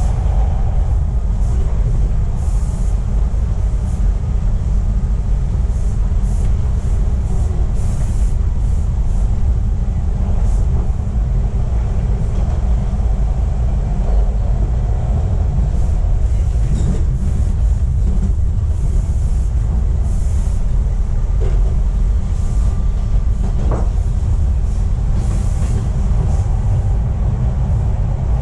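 Toronto subway train running at speed on Line 2, heard from inside the car: a steady, heavy rumble of wheels on track with no pauses or stops.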